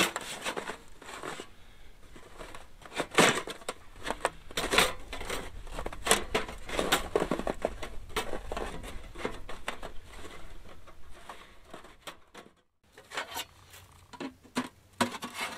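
Sheet-metal panels of a Luxe folding tent stove clinking, knocking and scraping against each other as they are handled and forced together by hand, in many irregular sharp clicks. The panels have warped after use and won't slot together, with a brief break a little after twelve seconds.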